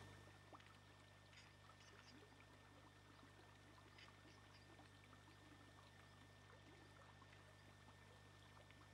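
Near silence: a steady low hum from the recording, with a few faint, scattered ticks.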